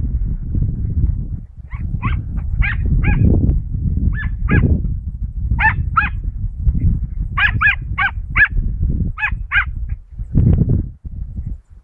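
Dachshund giving tongue in the brush while hunting rabbits: a run of about sixteen high yelping barks, many in quick pairs, starting about two seconds in and stopping near the ten-second mark. A steady low rumble lies under them.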